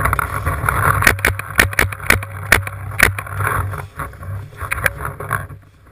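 A paintball player running through dry pine woods, heard through a camera mounted on the marker: sharp knocks about twice a second over rustling and a low rumble of handling noise, easing off near the end.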